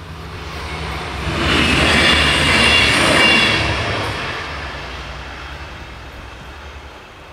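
A vehicle passing close by: the sound swells to a peak about two to three seconds in and then fades away, with a whining hiss over a low steady hum.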